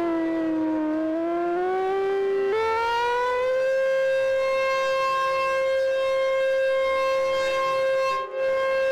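Super Sirex outdoor warning siren sounding the wavering attack signal. Its pitch sinks, jumps up about two and a half seconds in and holds steady for several seconds. There is a brief break in the sound near the end, and then the pitch starts to fall again.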